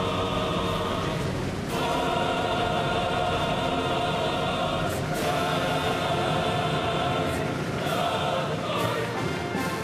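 Choral music: a choir singing long held chords that change every few seconds, with a few sharp hits at the chord changes.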